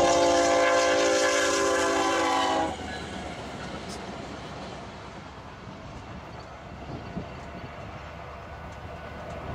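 Lead BNSF ES44C4 diesel locomotive's horn sounding a loud, steady chord for the grade crossing as the train passes at speed, cutting off abruptly about two and a half seconds in. The rushing of the train's wheels on the rails follows and slowly fades as the short train passes and goes away.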